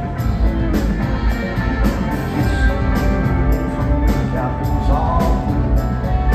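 Live rock band playing: guitars, bass, keyboards and drums heard from the audience of a concert hall, with a heavy low end and a steady beat.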